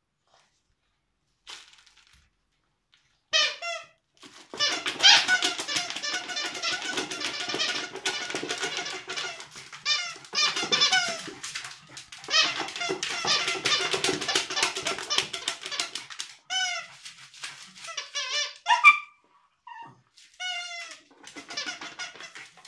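A dog's plush squeaky toy squeaking rapidly and over and over as the dog chews it. The squeaks start a few seconds in and come in long runs with short breaks.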